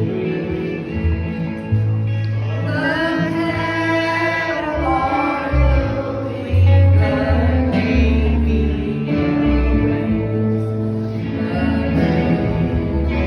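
Gospel-style song: singing over instrumental backing, with held bass notes that change every second or so.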